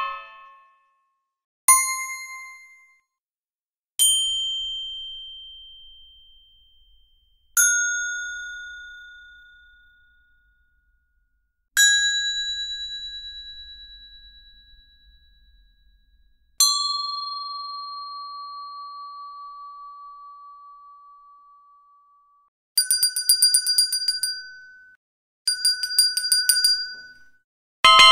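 A series of separate bell sounds, each followed by silence. First come five single struck dings of different pitches, each a clear ring fading away slowly; the last and lowest rings on for about six seconds. Near the end come two rapid trilling rings of about two seconds each, and a louder ring starts at the very end.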